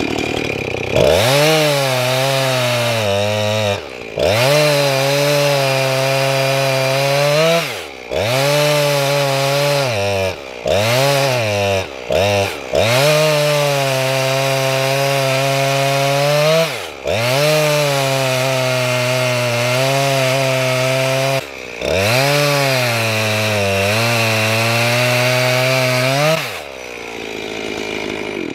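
Gas chainsaw with a PowerSharp self-sharpening chain cutting rounds from a cherry log: the engine revs to full throttle for each cut, its pitch sagging as the chain loads in the wood, and drops back to idle between cuts about eight times. Near the end it idles briefly and then shuts off.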